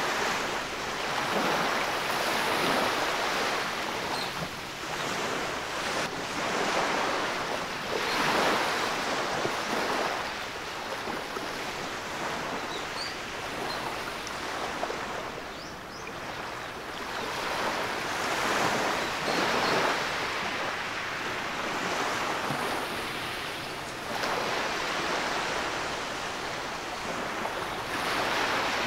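Small waves breaking and washing up a sand beach, the foamy surf swelling and fading in a slow rhythm, one wash every five or six seconds.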